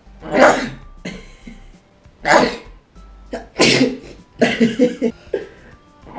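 A person sneezing again and again, set off by sniffing dried hare's cabbage (sedum) root: three loud sneezes about a second and a half apart, then a quick run of shorter bursts near the end.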